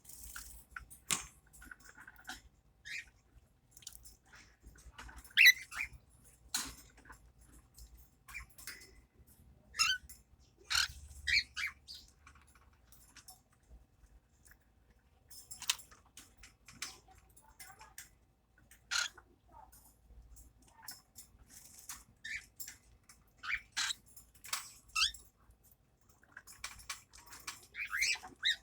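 Baby parrots making short, high squeaky chirps at irregular intervals, some sliding up or down in pitch, with a few soft clicks between them.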